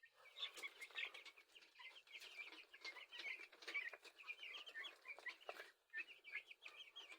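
A flock of two-week-old broiler chicks peeping, many short high chirps overlapping without pause, faint.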